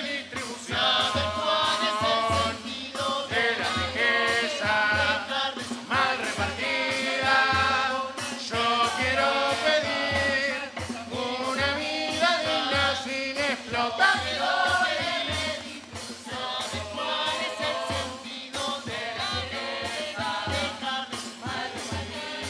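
A murga chorus singing together in several voice parts, over a steady low beat.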